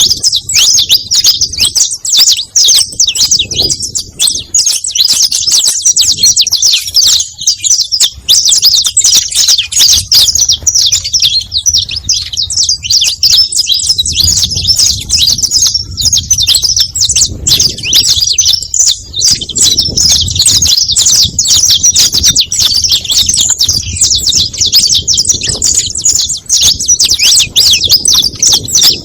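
Saffron finch (canário-da-terra) singing: a loud, unbroken stream of rapid, high-pitched chirps and trills.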